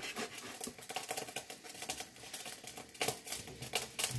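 Kitchen knife chopping garlic cloves on a wooden cutting board: a run of light, quick, uneven taps, with one sharper knock about three seconds in.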